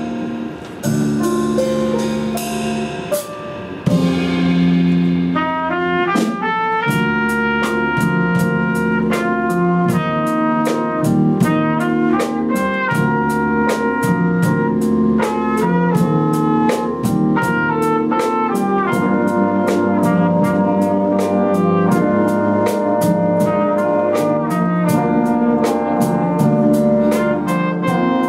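Student jazz stage band playing live: guitar and bass lead for the first few seconds, then the saxophone and brass section comes in with full chords over a steady drum-kit beat.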